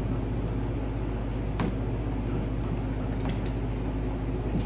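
Steady low background hum in a room, with about three faint clicks.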